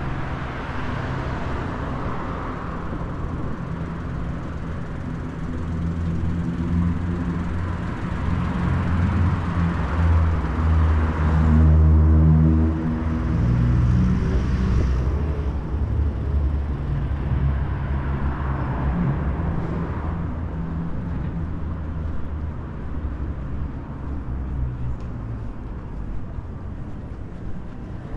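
City road traffic passing along a street, with the rush of tyres swelling and fading as vehicles go by. About halfway through, a passing vehicle's low engine rumble is the loudest sound, then fades.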